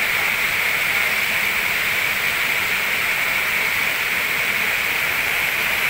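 Steady rushing of a fast-flowing river, an unbroken hiss of water.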